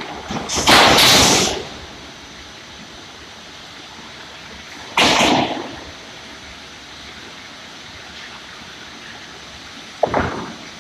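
Log cant-milling sawmill machine running with a steady noisy hum and a faint high whine, broken by three loud bursts of noise: one lasting about a second near the start, a shorter one about five seconds in, and a sharp one near the end.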